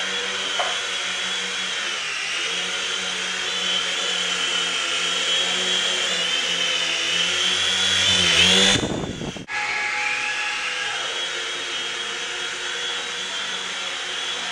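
Syma S026G Mini Chinook toy helicopter in flight: the high steady whine of its small electric motors and tandem rotors. Just past the middle the whine climbs in pitch and loudness, breaks off for about half a second, then resumes.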